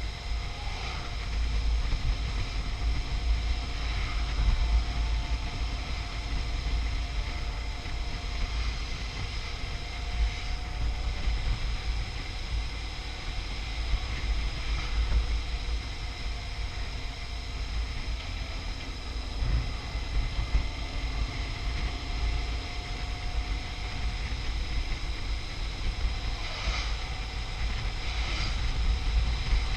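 Heavy wind noise buffeting the microphone while riding a BMW R1150 RT motorcycle, with the steady running of its boxer-twin engine and road noise underneath.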